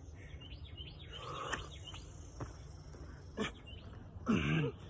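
A man doing burpees on cardboard laid over concrete: light slaps and knocks of hands and feet landing, and breathing. Near the end there is a short strained grunt as he works through the push-up.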